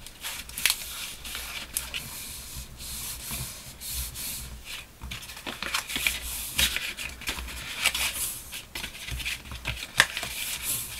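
A sheet of scored paper being folded by hand into a concertina along its score lines and pressed flat, rustling and rubbing, with occasional sharp crackles as the folds are creased.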